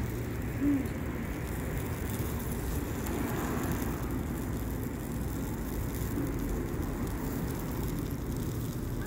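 Steady low rumble and hiss of outdoor street background noise, with a short louder sound about a second in.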